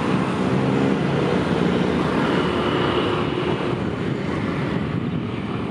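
Daewoo-built diesel railcar approaching at low speed, its diesel engine running with a steady drone. A faint high squeal comes in briefly around the middle.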